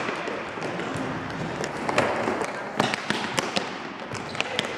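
Futsal ball being kicked and bouncing on a hard indoor court: several sharp knocks, mostly in the second half, over steady background noise.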